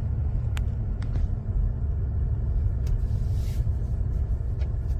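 Road noise inside a moving car: a steady low rumble, with a few faint clicks from the cabin.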